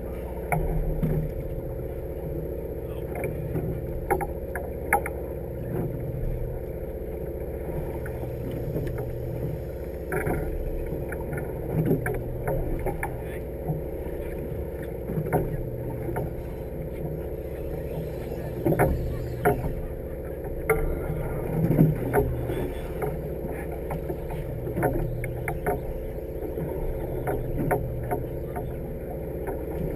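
Steady hum of a fishing party boat's engine, with irregular short knocks and clicks on deck.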